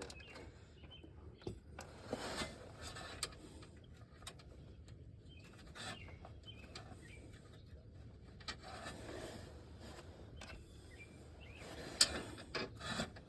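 Faint, scattered clicks and scrapes of a socket and ratchet being fitted onto suspension bolts and handled, with a few louder clinks about two seconds in and near the end.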